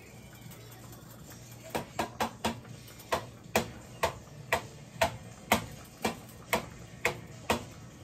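Metal kitchen tongs clacking: sharp clicks about two a second, starting about two seconds in and running until near the end, over a low steady hum.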